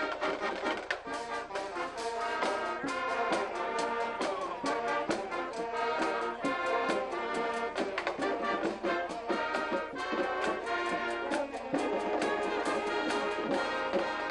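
High school marching band playing: brass and saxophones in full ensemble, with frequent drum hits.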